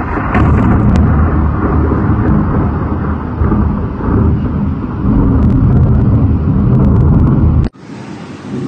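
A long, loud rumble of thunder in a snowstorm (thundersnow), recorded on a phone. It cuts off abruptly near the end, leaving a quieter hiss.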